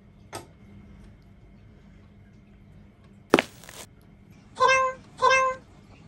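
A cat meowing twice, two short calls about half a second apart near the end, after a single sharp tap a little past the middle.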